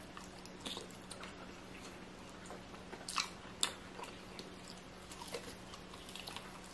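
A person chewing food close to the microphone, with scattered soft clicks and mouth sounds, the most distinct about three seconds in. A faint steady hum runs underneath.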